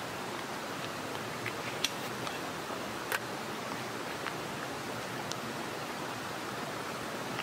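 Steady rushing of a mountain stream, with a few sharp clicks about two and three seconds in.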